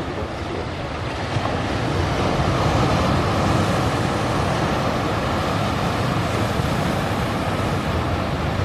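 Sea surf washing among shoreline boulders: a steady rushing that swells about two seconds in and holds.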